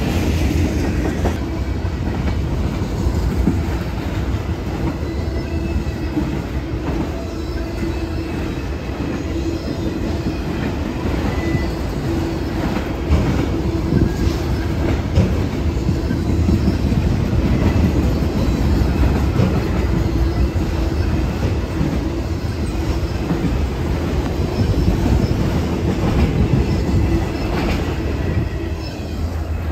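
Freight cars (covered hoppers, a tank car, then autorack cars) rolling past close by: a loud, steady rumble and rattle of steel wheels over the rail joints, with some wheel squeal at times. The loudness drops right at the end.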